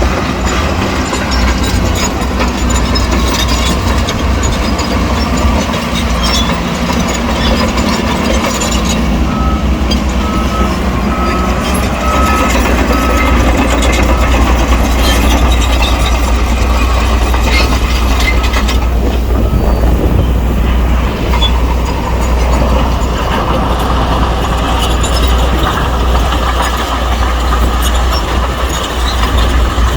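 Heavy diesel earthmoving machinery working: a Shantui bulldozer and dump trucks running with a steady low rumble and scattered metal clanks. About ten seconds in, a reversing alarm gives a short series of about six beeps.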